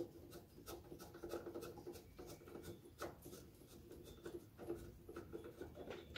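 Faint rubbing and scattered small clicks of fingers and metal as an ATV radiator fan switch is unscrewed by hand.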